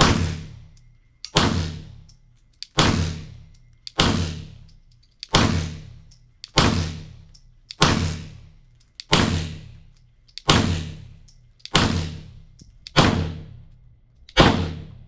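Unsuppressed 9mm pistol shots fired slowly one at a time, about one every 1.3 seconds, a dozen in all. Each loud report trails off in a long echo across the range.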